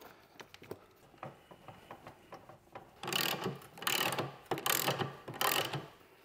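Hand ratchet wrench being cranked: a few light clicks and taps, then about three seconds in four short strokes of rapid ratchet clicking.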